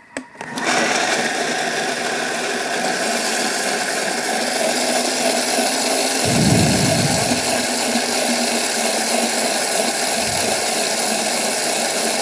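Thermomix food processor starting up about half a second in and running steadily at high speed, puréeing strawberries, tomatoes, peppers, onion and toast into gazpacho while oil is drizzled in through the lid opening. A brief deeper rumble comes around six seconds in.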